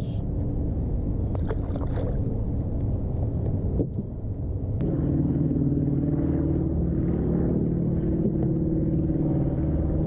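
Boat motor running steadily, its hum growing stronger and steadier about five seconds in, with a few light clicks near the start.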